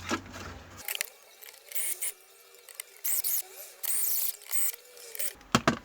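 Several short scraping, rustling handling noises about a second apart, with a few sharp clicks near the end, as a TV power supply board is fitted back into place.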